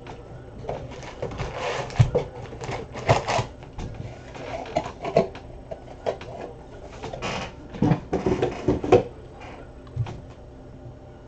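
Cardboard trading-card hobby boxes being handled and moved on a table: irregular knocks, scrapes and rustling, with the sharpest knocks about two seconds in and a cluster of them near the end.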